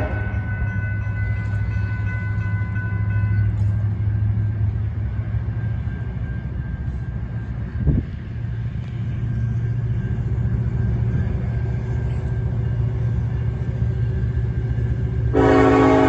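A steady low rumble from the approaching train, between horn blasts, with a single knock about halfway through. Near the end the Norfolk Southern SD70ACe locomotive's air horn sounds again, a loud chord of several tones.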